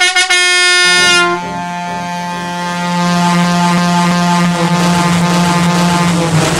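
Fairground ride horn sounding one long steady blast. About a second in its tone drops lower and quieter, and it holds there while a rushing hiss builds from about three seconds in.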